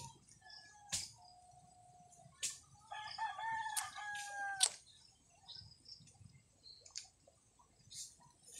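A rooster crows once, starting about three seconds in: a drawn-out call of under two seconds that drops in pitch at the end. Scattered sharp crackles and clicks are heard around it.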